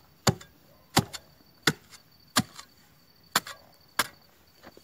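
A steel spade (vanga) chopped straight down into the soil again and again, seven sharp strikes about two-thirds of a second apart, cutting along the marked outline of a footing hole.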